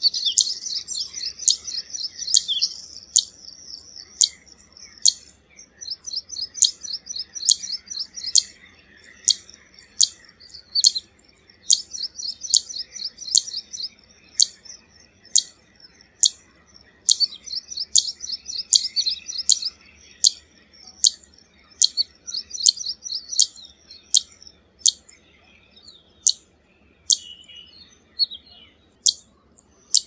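Zitting cisticola (Cisticola juncidis) calling: sharp, high 'zit' notes repeated evenly, about three every two seconds, with rapid high chattering runs between them in several stretches.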